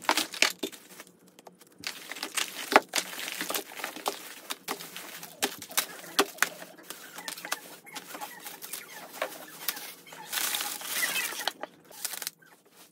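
Plastic candy and snack wrappers crinkling and rattling as small packaged items and wrapped hard candies are dropped onto a pile on a wooden floor, with many quick clicks and a longer stretch of crinkling about ten seconds in.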